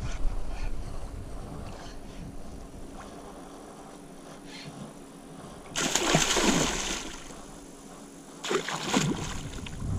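A hooked alligator gar thrashing at the water's surface. There are two bursts of splashing: the first comes about six seconds in and lasts about a second, and a shorter one follows near the end.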